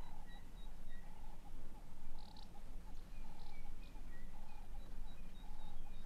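Animal calls: short notes repeated every second or so, mixed with short high chirps, over a steady low rumble.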